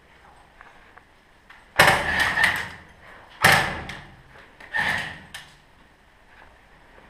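Three short, loud bursts of airsoft gun fire, about a second and a half apart, each ringing briefly off hard tiled walls.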